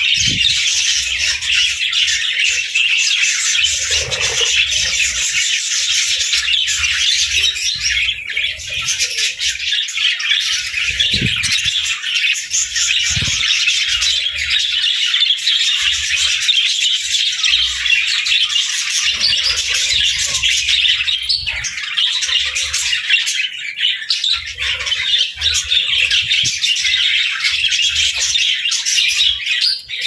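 A flock of budgerigars chattering continuously: many overlapping chirps and warbles with no pause.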